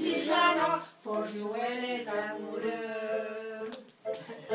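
Voices singing a song with long held notes, breaking off briefly about a second in and again near the end.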